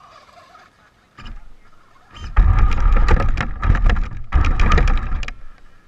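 Radio-controlled Traxxas Slash 4x4 trucks driving hard on dirt, with a whining electric motor and tyre and gravel noise. It comes in two loud passes after a quiet start.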